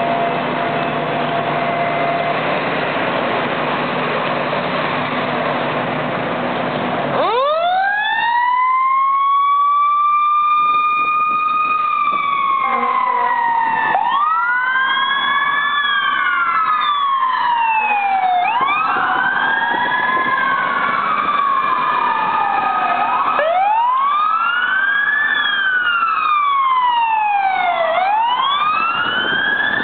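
Fire apparatus sirens. A siren winds up sharply about seven seconds in, then several sirens rise and fall in overlapping wails as the trucks respond. Before the sirens start there is a steady rumble of engines and traffic.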